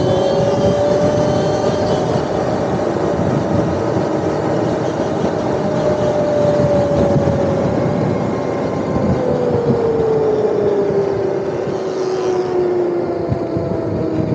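Electric dirt bike's motor whining under wind and road noise rushing over the microphone while riding. The whine holds steady, then falls in pitch from about nine seconds in as the bike slows.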